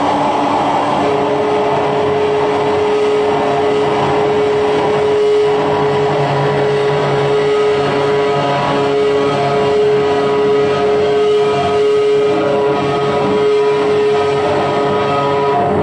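Loud, dense wall of live noise music from amplified electronics: a continuous rumbling haze of distortion with one held tone coming in about a second in and lasting almost to the end, and fainter drone tones layered above it.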